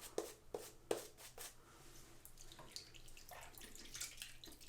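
Faint wet squishing and clicking of a synthetic shaving brush working lather, with a few sharp clicks in the first second and a half and softer scattered wet sounds after.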